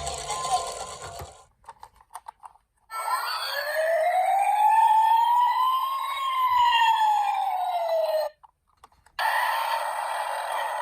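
A police car siren wailing once: one slow rise in pitch and fall, cut off abruptly. After a short gap comes a steady rushing noise with a held tone.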